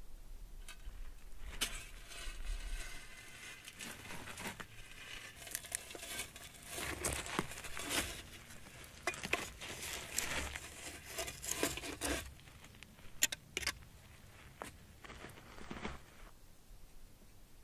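Irregular scraping, clinking and crunching as a freshly pit-fired clay vessel is pried out of its fire pit with two sticks and pushed over coals and gravel. The sounds die down near the end.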